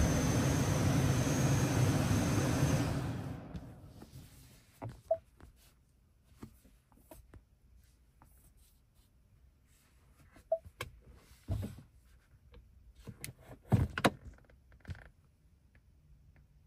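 A steady rushing noise that stops about three seconds in, then soft taps and clicks of a finger on a car's infotainment touchscreen and dash buttons, with two short beeps from the screen.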